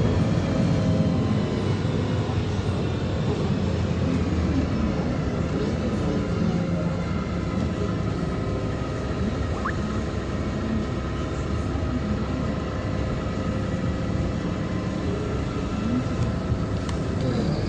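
Inside a LiAZ-5292.67 CNG city bus on the move: steady engine and drivetrain hum over road noise, with faint whining tones. The engine note rises near the end as the bus picks up speed.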